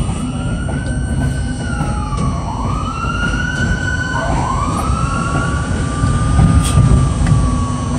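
R42 subway train running with a steady heavy rumble. Over it, a wailing tone rises and falls about three times.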